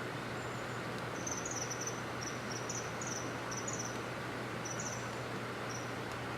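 Common kingfisher giving short, sharp, very high-pitched calls in quick clusters, repeated over about four seconds, during a territorial dispute. A steady hiss runs underneath.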